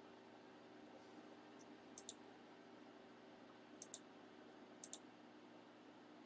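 Near silence with faint room hum, broken by three pairs of short, sharp clicks: about two seconds in, near four seconds, and near five seconds.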